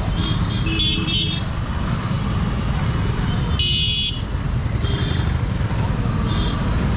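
Busy road traffic with a steady low rumble, cut through by several short vehicle horn toots; the loudest, longest honk comes about three and a half seconds in.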